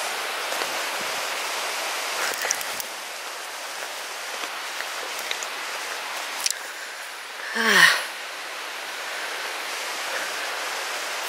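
Steady rush of the River Lyn's flowing water. About eight seconds in comes a brief, louder sound that falls in pitch.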